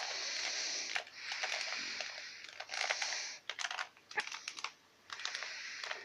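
2x2x2 Rubik's cube being turned quickly by hand: rapid plastic clicks and scraping as the layers twist, in short runs with brief pauses.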